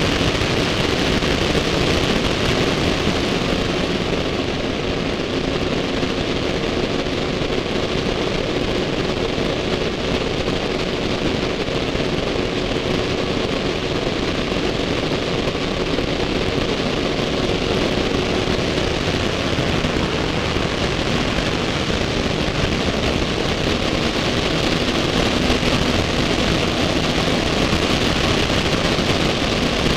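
Steady rush of airflow over a camera mounted under the wing of an Earthstar Thunder Gull JT2 ultralight in flight, with a faint steady engine tone underneath.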